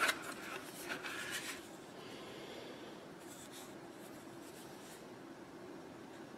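A flip phone being pulled out of its plastic packaging tray: a sharp click, then about a second and a half of plastic scraping and rustling. After that only faint handling noise of fingers on the phone.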